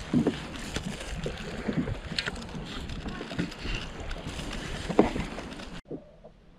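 Wind on the microphone and choppy water lapping around a plastic kayak, with a few sharp knocks. Near the end it drops much quieter.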